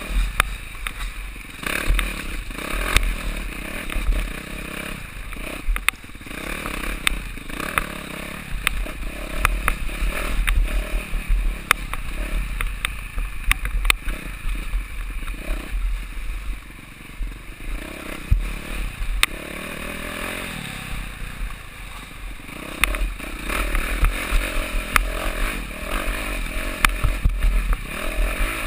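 Enduro motorcycle engine running hard and changing pitch as it rides over a rocky forest trail, heard from the rider's helmet, with many sharp knocks and clatter from stones and the bike. The engine note rises clearly about two-thirds of the way through.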